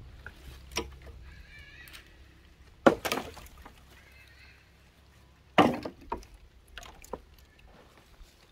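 Pieces of firewood and cut logs being handled and stacked, knocking and clattering against each other in a few separate strikes, the loudest about three seconds in and about six seconds in.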